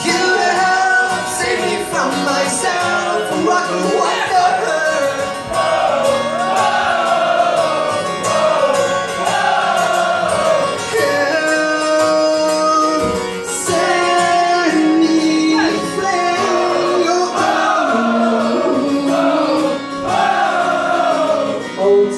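Live band playing a song, with a male lead singer singing into a microphone over electric bass and the rest of the band, recorded loud from within the crowd.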